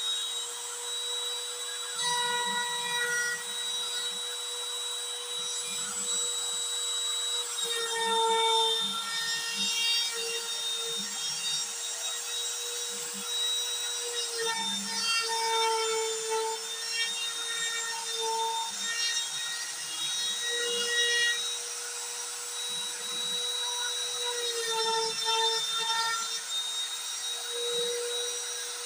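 Compact trim router, used as the spindle of a homemade CNC router, running at high speed with a steady high whine as its bit carves into MDF board. The whine dips slightly in pitch several times as the bit takes load, with rough cutting noise underneath.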